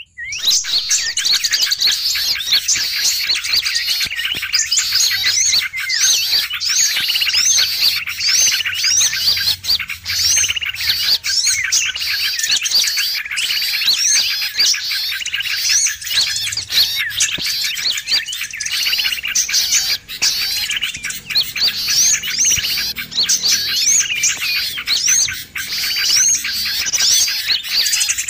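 Bird-trapping lure recording of a noisy flock of small birds, sooty-headed bulbuls (kutilang) among them. The birds chirp and call over one another without pause in a dense, busy chatter, the kind of call played to draw wild small birds in.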